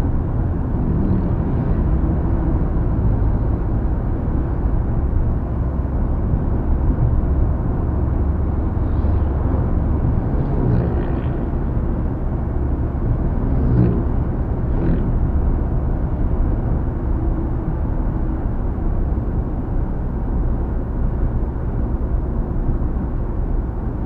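Steady low road and tyre rumble with engine hum inside the cabin of a Mitsubishi Xpander cruising on smooth asphalt highway. There is little wind noise, with the door gaps sealed by added rubber door seals.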